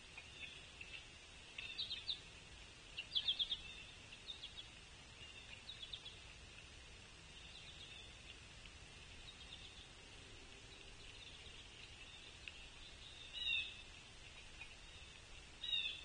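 Wild birds calling: a few short, rapid chip series in the first six seconds, the loudest about three seconds in, and two sharp downslurred calls near the end. Beneath them runs a faint steady high-pitched hum.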